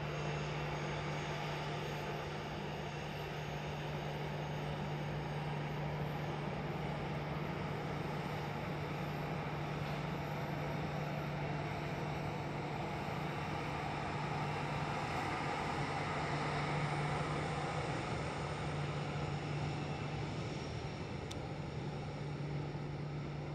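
Jet airliner engines running some way off: a steady low hum under a rushing noise, which swells a little about two-thirds of the way through.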